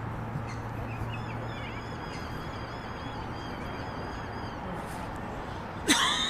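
Birds calling: a run of quick, repeated high chirps, then one loud, harsh call near the end.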